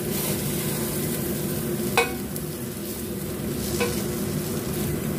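Oil sizzling under slices of pan-fried silken tofu in a steel pan as a silicone spatula scrapes along the pan and lifts them out. A sharp tap comes about two seconds in and a lighter one near four seconds.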